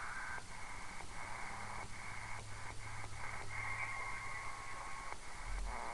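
Receiver static from a CB radio converted to the 80-metre ham band, heard through its speaker as it is stepped through channels. The hiss is cut by a short gap at each click of the channel selector, and a faint steady whistle comes in for a moment near the middle.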